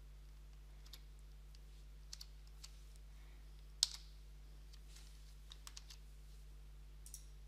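Computer keyboard keys tapped one at a time, a scattered handful of soft clicks with the sharpest about four seconds in, over a faint steady low hum.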